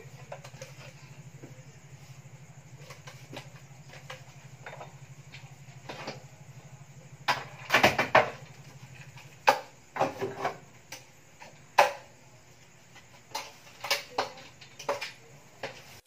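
Wooden cabinet door being handled and offered up to a kitchen wall cabinet for fitting: scattered knocks and clatters, a burst of them about eight seconds in and several sharp single knocks after. A low steady hum runs under the first half and stops about halfway through.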